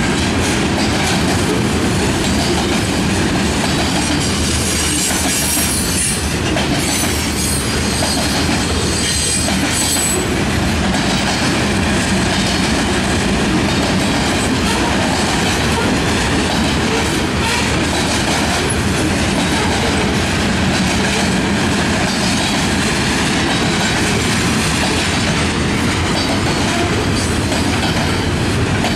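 Freight train of covered hopper cars rolling past at steady speed: a continuous rumble of steel wheels on rail with clacking over the rail joints. There is a brief high wheel squeal about a third of the way in.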